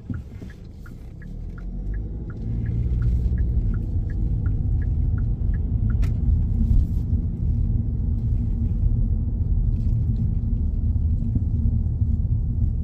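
A car's turn-signal indicator ticks about three times a second inside the cabin and stops with a click about six seconds in. Meanwhile the car's low road and engine rumble grows louder as it pulls away from the curb, then holds steady as it drives on.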